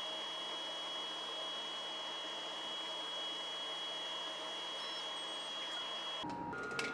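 Laser cutter running while cutting a thin wooden mandolin top: a steady hiss with a thin, high steady whine. About six seconds in it changes abruptly to a different steady background with a lower whine and a single click.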